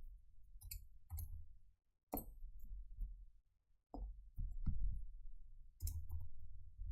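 A lock pick and tension wrench working in a four-pin Biltema padlock during single pin picking: about half a dozen sharp metal clicks at irregular intervals, over low handling rumble.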